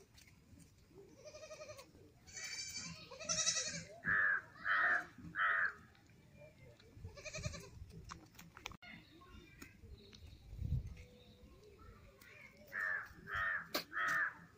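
Young goat kid bleating in quavering cries. Two runs of three short, evenly spaced calls, the first about four seconds in and the second near the end.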